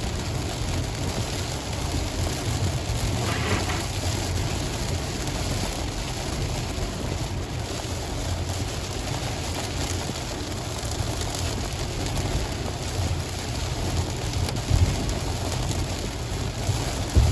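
Steady rain falling on surfaces, an even hiss with a low rumble underneath.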